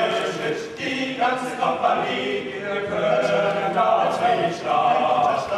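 A male a cappella group of five voices singing a German folk song in several-part harmony.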